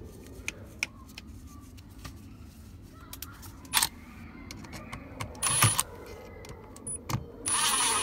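Light clicks and rattles of plastic and metal as the new multi-function switch is set in place and a bit is fitted to its mounting screw. Then a small power driver runs with a high whine, in a short spurt and then a longer run near the end, turning the screw in.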